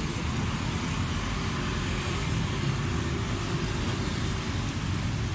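Steady rumble of passing road traffic and running vehicle engines.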